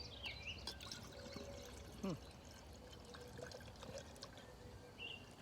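A carbonated orange malt beverage being poured from a bottle into a glass: a faint pouring trickle with small fizzing crackles. Birds chirp at the start and again near the end.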